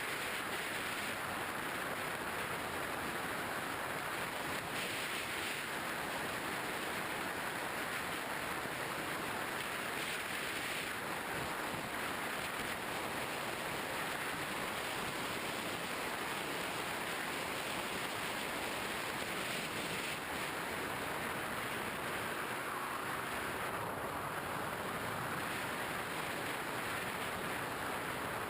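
Steady rushing airflow noise over a GoPro Hero 2 carried on a model plane in flight, even and unchanging throughout.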